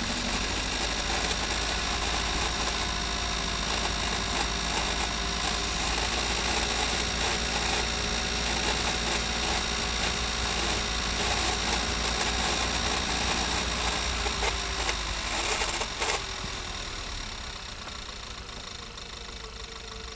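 Audi A3 gearbox and drivetrain running with the engine, heard close up from beneath the transmission casing: a steady mechanical hum and whirr carrying the unusual noise the owner is trying to diagnose. About sixteen seconds in a sharp click is heard, the sound drops and a tone falls in pitch as the drivetrain winds down.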